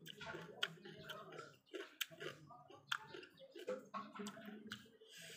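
A person chewing crunchy raw cucumber close to the microphone, with irregular wet crunches and mouth clicks.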